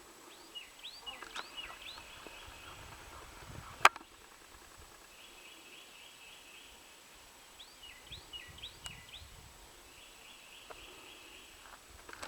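Birds calling faintly: clusters of short curved chirps and a buzzy, rapidly repeated trill that comes and goes several times. A single sharp click about four seconds in.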